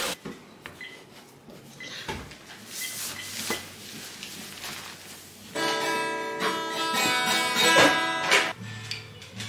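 Acoustic guitar background music: soft plucked notes at first, then loud strummed chords ringing out for about three seconds from just past halfway.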